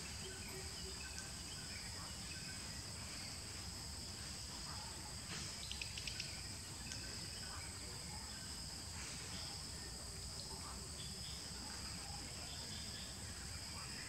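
A steady insect chorus: two unbroken high-pitched drones over a low rumble. A short run of sharp clicks comes about five and a half seconds in.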